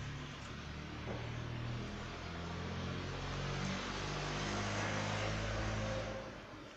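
Low motor hum with a rushing noise that swells to its loudest in the second half and fades near the end, like a vehicle engine going past.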